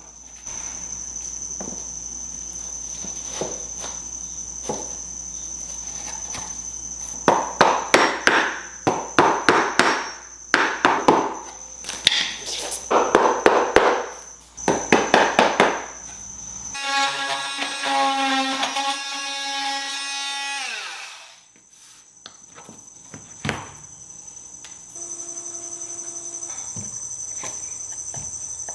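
Cork click-lock floor planks being knocked into place, in rapid bursts of sharp tapping over several seconds, seating each plank tight into the previous row. A steady high-pitched whine runs underneath. Near the middle a pitched sound with falling tones lasts a few seconds.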